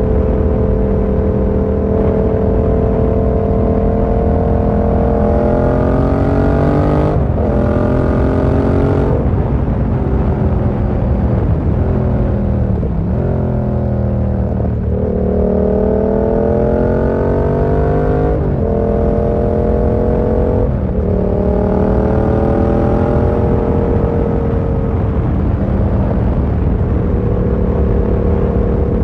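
Yamaha MT-07's 689 cc parallel-twin engine heard from the rider's seat, running at a steady cruise. In the middle it pulls up several times, its pitch rising and then dropping back sharply at each gear change. It settles to a steady cruise near the end.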